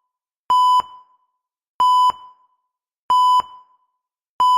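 Electronic heart-monitor beep, a steady mid-pitched tone repeating evenly about once every 1.3 seconds, four beeps in all, the last just starting near the end.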